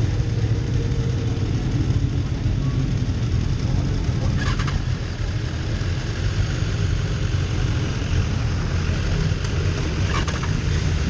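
BMW S1000RR inline-four and other sport motorcycles idling while waiting at the pit lane exit, a steady low rumble heard from a camera on the bike. Two short sharp clicks stand out, once early and once near the end.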